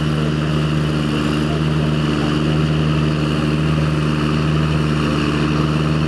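John Deere tractor's diesel engine running steadily under load while pulling a plough, with an even, unchanging engine note.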